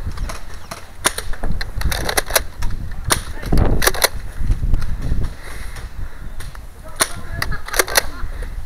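Nerf foam-dart blasters clacking as they are primed and fired: sharp plastic spring-plunger clicks in clusters, about a second in, again around three to four seconds, and near the end, over a low rumble.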